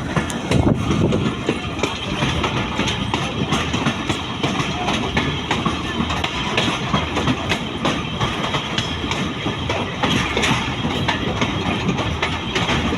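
Pakistan Railways train running along the track: a steady rumble and rattle, with the wheels clicking over the rail joints.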